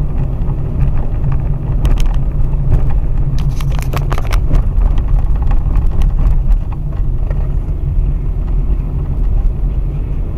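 A car driving over a rough, rippled road surface: a steady low rumble of tyres and suspension, with a cluster of knocks and rattles around four seconds in as it goes over bumps.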